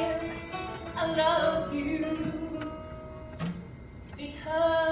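A woman singing long held notes in a musical-theatre song, dropping away in the middle and coming back strongly near the end.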